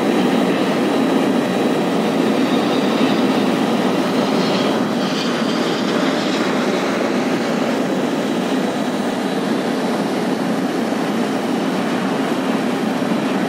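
Steady low rumble and hiss of engine noise, with a brief high whine about four to seven seconds in.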